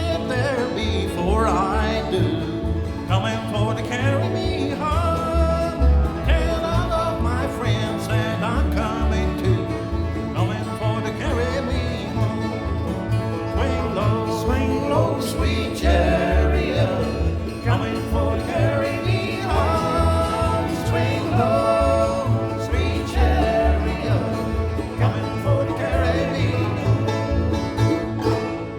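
Bluegrass band playing: picked string instruments over a steady bass beat. The music dies away near the end.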